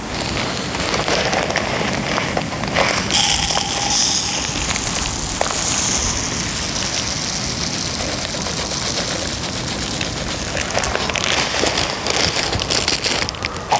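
Aller Aqua Primo 2 mm fish-feed pellets being poured and measured out: a dense rattling hiss of small hard pellets, loudest from about three to six seconds in.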